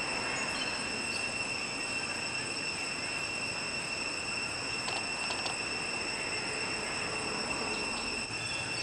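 Insect chorus droning in one steady, unbroken high-pitched whine over a background hiss.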